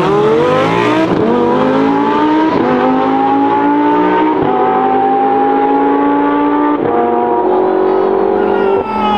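Lamborghini Huracán's V10 under full-throttle acceleration from a standing start, climbing in pitch through each gear with five quick upshifts, each a sudden drop in pitch. A second car accelerates alongside.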